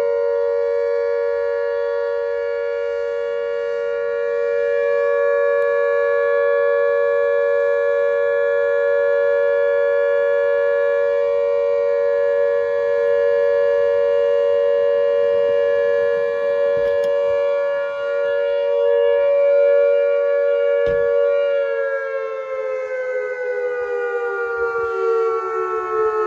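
Whelen WPS-2740 electronic outdoor warning siren sounding its dual tone: two close pitches held steady, as in the alert signal. About 22 seconds in, both pitches glide down together as the signal winds down.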